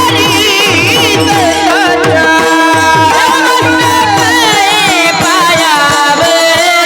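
Marathi devotional kirtan singing with long, ornamented vocal lines over a hand drum playing quick bass strokes that bend down in pitch, and a held drone note beneath.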